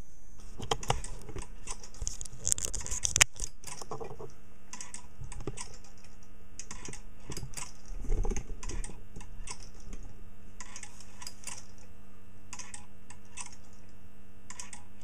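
Handling knocks and rattles, then irregular clusters of quick, light clicks, like typing, over a steady electrical hum.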